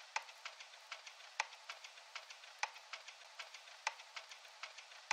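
Background music's percussion-only intro, with no singing yet. Light hi-hat-like ticks run about five a second over a hiss, with a stronger accent about every 1.2 seconds; the bass is filtered out.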